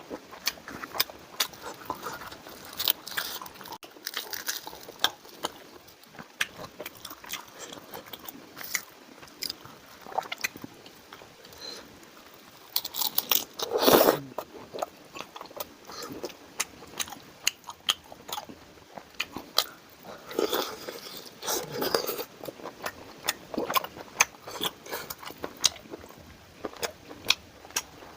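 Close-miked mukbang-style eating: chewing and crunching bites with many small wet mouth clicks, louder about halfway through and again about two-thirds of the way in.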